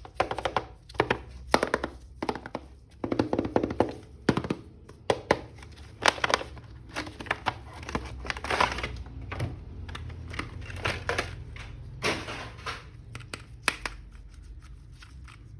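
A plastic toy action figure and its packaging being handled and unboxed: irregular clicks, taps and thunks, sometimes in quick clusters, thinning out near the end.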